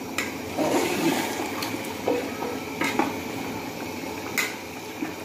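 Water sloshing and bubbling in a hot pot of chicken korma as it is stirred with a steel ladle, which knocks against the metal pot about four times.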